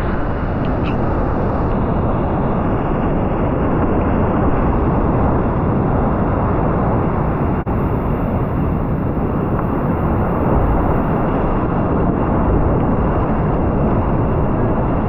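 Whitewater rapid rushing steadily, heard up close from a kayak running down through it, with one brief break about halfway.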